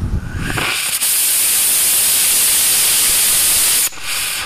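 Small DIY ammonium perchlorate composite (APCP) solid rocket motor firing on a static test stand. It catches with a couple of pops, and a loud steady hiss builds within about a second. The hiss holds for about three seconds, then cuts off sharply, leaving a brief fading hiss as the motor depressurizes. The exhaust through its 6.3 mm nozzle is supersonic and overexpanded.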